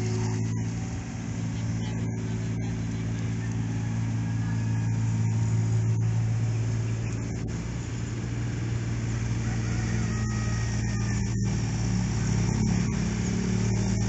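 Diesel engine of an amphibious excavator running steadily while the arm digs, with a deep, even hum that swells slightly a couple of times under load.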